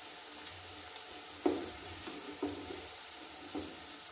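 Banana flower pakoras frying in hot oil in a kadhai, a steady sizzle. A wire skimmer and wooden spatula knock against the pan three times as the pakoras are lifted out, the first, about one and a half seconds in, the loudest.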